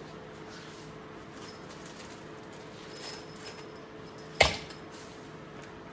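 Hand tools being handled and set down: faint shuffling, then one sharp clack about four and a half seconds in, over a steady low hum.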